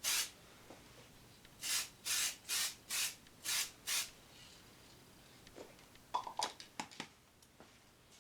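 Aerosol spray paint can hissing in short bursts, about seven quick sprays in the first four seconds, followed by a few light clicks and knocks.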